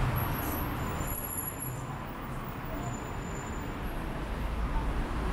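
Busy city street ambience: a steady low rumble of passing road traffic.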